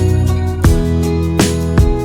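Background music with steady plucked-guitar chords and a regular beat.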